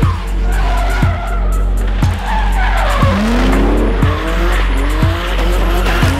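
Drift car engine revving up and down as the tyres squeal through a slide, under background music with a steady beat about once a second.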